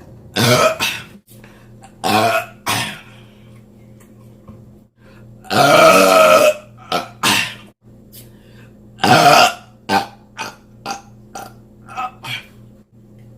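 A person belching over and over: a string of loud burps of different lengths, the longest and loudest about six seconds in, lasting about a second, and a cluster of shorter, smaller ones near the end.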